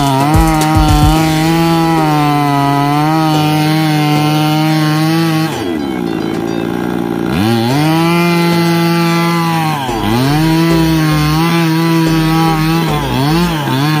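Two-stroke chainsaw cutting through a fallen neem log at full throttle. The engine drops back for about two seconds midway and revs up again, then dips briefly a few times near the end.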